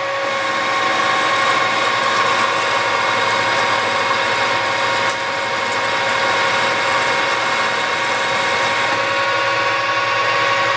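Clausing Colchester 13-inch metal lathe running at 1200 RPM under a heavy dry turning cut: a steady gear whine with the hiss of the tool peeling off chips. The spindle holds its speed and doesn't bog under the load.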